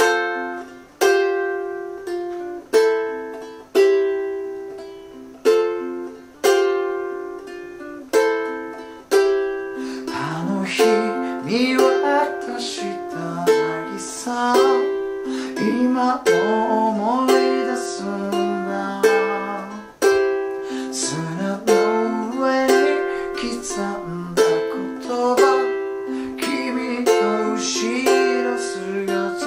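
Thin-bodied G-Labo Gazz-model ukulele fingerpicked in arpeggios over an F–G7–Am–C chord loop, each plucked chord ringing out and dying away. About ten seconds in, a man starts singing over the arpeggios.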